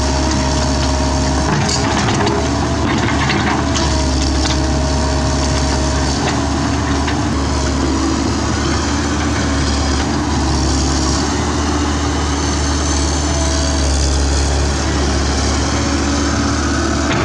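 Komatsu PC130F excavator's diesel engine running steadily while its bucket digs at a tree stump, with sharp cracking and splintering of wood and roots about one and a half to four seconds in.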